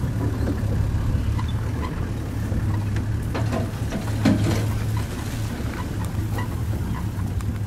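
Safari vehicle's engine running steadily at low revs, with scattered small knocks and clicks over it.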